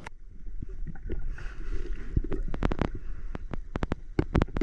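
Underwater sound picked up by a diver's camera: a steady low rumble with a run of sharp clicks and knocks, thickest a couple of seconds in and again near the end.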